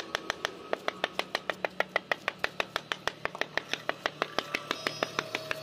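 A hammer tapping a marble floor strip in rapid, even light strokes, about six a second, to bed it down into fresh mortar.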